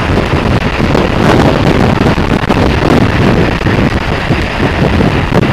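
Wind rushing and buffeting over the microphone of a moving motorcycle, with road and engine noise underneath as a steady rumble.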